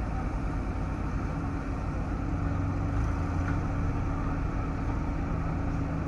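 Heavy diesel engine of earth-moving machinery running steadily at a constant speed, with a low, even hum.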